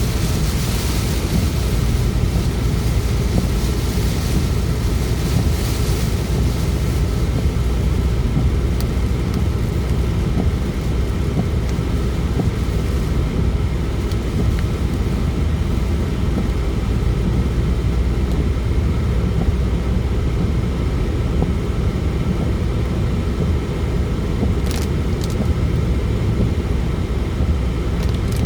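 Car driving through a thunderstorm, heard from inside: a steady low drone of tyres and engine, with a hiss of rain and wind on the car that is heavier for the first several seconds and then eases. A few sharp ticks strike near the end.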